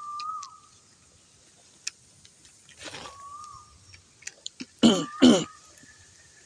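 Two loud, harsh coughs in quick succession about five seconds in, over a short whistled call that repeats three times.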